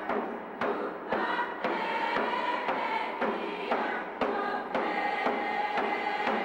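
Background music: a steady drum beat, about two strikes a second, under a held melody.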